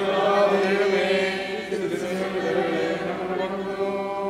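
Many voices chanting a sung liturgical response together, holding one long steady note that fades out near the end.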